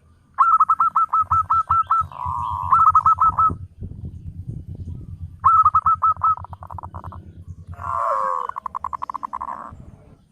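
Zebra doves (perkutut) calling: several runs of short, hooked cooing notes, about eight a second, broken by pauses, with a low rapid pulsing underneath.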